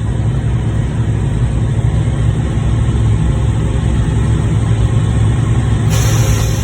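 Heavy diesel truck engine idling steadily with a deep drone, with a short hiss near the end.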